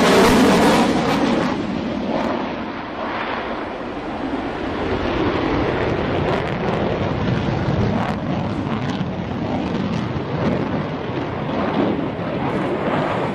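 F-22 Raptor's twin Pratt & Whitney F119 afterburning turbofans roaring as the jet manoeuvres overhead. The roar is loudest in the first second or so, with a falling whine as it passes, then eases into a steady, crackling rumble.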